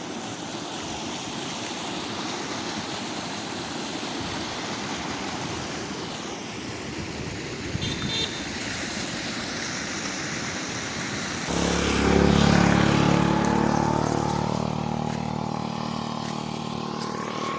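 Steady rush of flowing, foaming polluted water. About two-thirds of the way in, a motor engine comes in loud with a low hum, then slowly fades.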